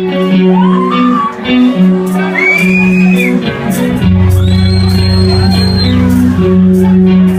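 Song intro: guitar-backed music with a few high sliding notes, and a heavy bass line that comes in about four seconds in.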